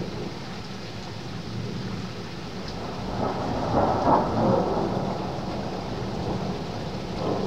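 Thunder rumbling over a steady background hiss. The rumble swells about three seconds in, peaks a second later and dies away, with a smaller rise near the end.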